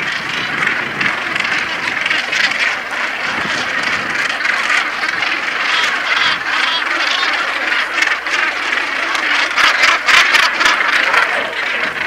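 Northern gannet breeding colony: many birds calling at once in a dense, continuous din, a little louder near the end.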